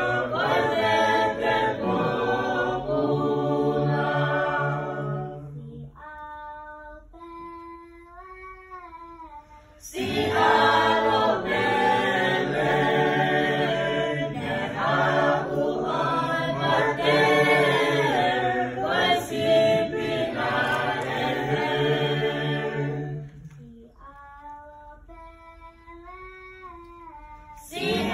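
A choir singing a cappella, full voices in harmony, twice dropping to a single voice singing a phrase alone before the whole choir comes back in.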